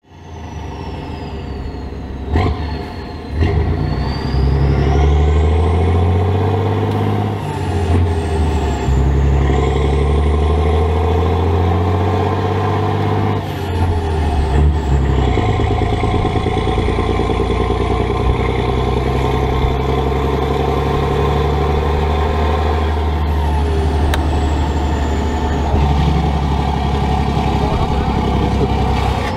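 Volvo F16 intercooled six-cylinder turbodiesel truck engine and exhaust heard from the cab while driving. The engine note climbs and drops several times in the first half, then runs steadily, with a faint high whistle rising and falling above it.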